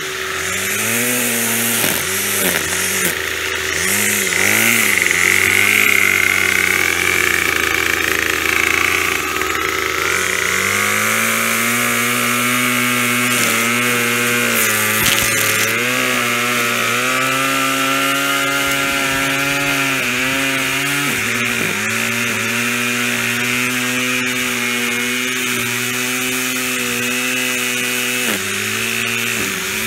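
Gas-powered string trimmer (weed eater) engine running, its speed wobbling up and down for the first ten seconds, then held at a steadier, higher speed with brief drops about two-thirds of the way through and near the end. A shop vacuum hums steadily underneath.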